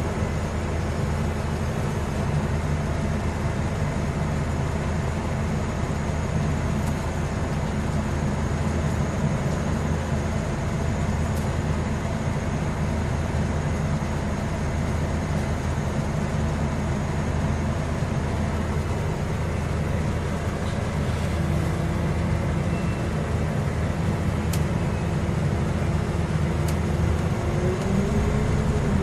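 Scania N230UD bus's five-cylinder diesel engine running steadily, heard from inside the passenger saloon with road noise. A thin whine comes in about two-thirds of the way through and rises near the end.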